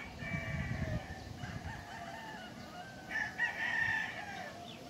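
Rooster crowing: one crow fading out in the first second, and a second, louder crow from about three seconds in.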